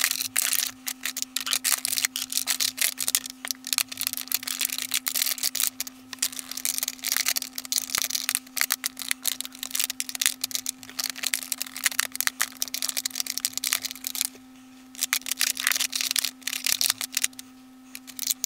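Plastic makeup compacts and blush pans clicking and clattering against each other and a clear acrylic organiser as they are shuffled and slotted into place, in quick irregular taps with a couple of short pauses near the end. A steady low hum runs underneath.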